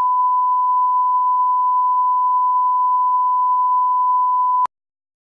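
Steady 1 kHz line-up tone, the reference tone that goes with television colour bars for setting audio levels. It holds one unchanging pitch and cuts off abruptly about four and a half seconds in.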